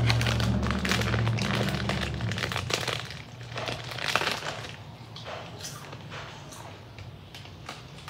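Cool Ranch Doritos tortilla chips crunching as they are bitten and chewed close to the microphone, dense for the first three seconds with one loud crunch about four seconds in, then sparser crackles as the chip bag is handled.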